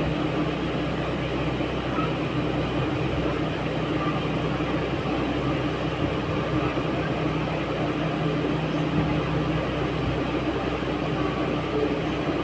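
Steady mechanical hum with constant low tones over an even noise, unchanging throughout.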